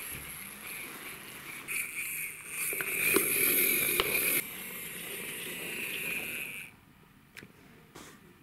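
Plastic toy truck's wheels rolling as it is pushed along by hand, a steady rushing noise that is loudest a few seconds in and stops suddenly near the end, followed by a couple of faint clicks.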